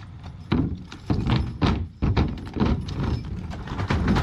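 Draft horses' hooves clomping heavily on wooden planks laid over a steel cattle guard, a series of hollow thuds about half a second apart, as the team pulls a wooden-wheeled covered wagon onto it.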